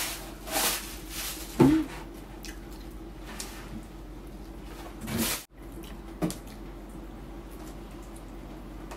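Close-up mouth sounds of eating roast chicken by hand: a few separate wet smacks and finger-sucking sounds, over a steady faint hum.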